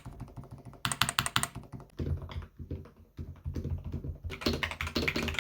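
Typing on a magnetic keyboard fitted with Gateron Jade Silent switches: rapid keystrokes in bursts, a dull clicking like the clop of hooves or heels.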